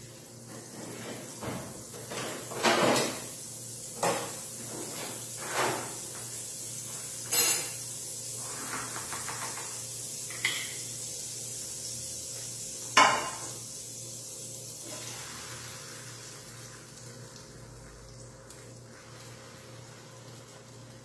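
Butter sizzling and bubbling in a hot non-stick frying pan, with about six sharp clinks of kitchen utensils, the loudest about 13 seconds in. The sizzle dies down over the last several seconds.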